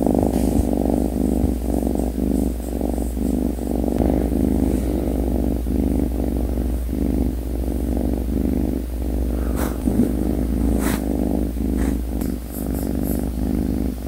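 A Korean shorthair kitten purring steadily close to the microphone while asleep and being stroked, a low, evenly pulsing rumble.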